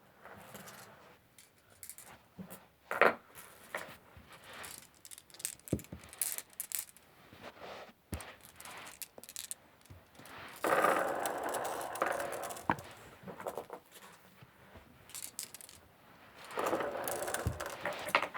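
Glass marbles clicking against each other as they are picked up by hand and loaded into a cardboard marble gun. Two longer stretches of rattling and scraping come about eleven seconds in and near the end.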